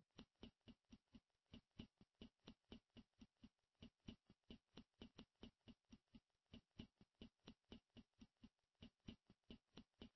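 Near silence, with a very faint, even ticking about five times a second.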